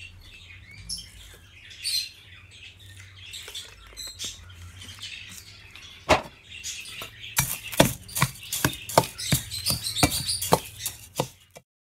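Small songbirds chirping and tweeting in the background. About halfway through, a quick run of rustling, clattering strokes starts, the loudest sound here: hands mixing dry seed and egg-food pate in a steel basin. The sound cuts off suddenly just before the end.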